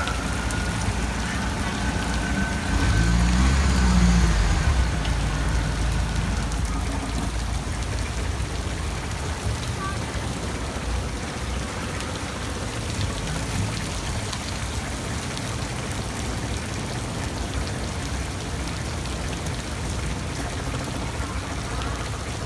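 Steady rain falling, with a boat's motor running close by and loudest about three to five seconds in.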